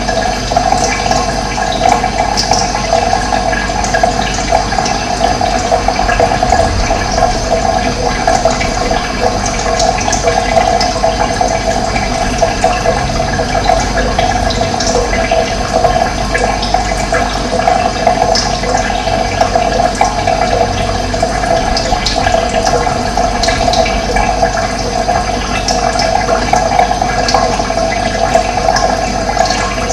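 Running water flowing steadily, with short high bird chirps now and then.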